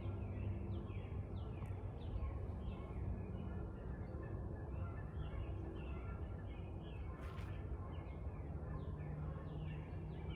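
Wild birds calling: a run of many short chirps, each falling in pitch, over a steady low rumble, with one brief rustle about seven seconds in.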